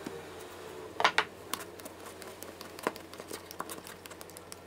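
Hands handling an electric hand planer and unscrewing its front depth-adjuster knob: a couple of sharp plastic-and-metal clicks about a second in, then lighter scattered ticks.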